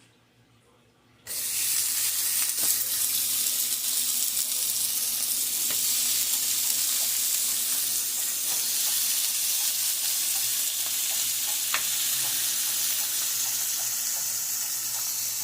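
Fresh-ground beef burger patties sizzling as they fry, starting abruptly about a second in, a steady loud hiss with scattered small pops of fat.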